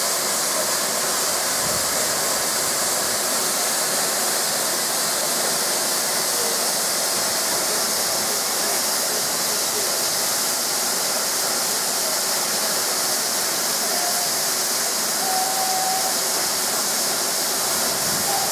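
Steam hissing steadily and evenly from the standing Austerity 0-6-0 saddle tank locomotive No. 71515.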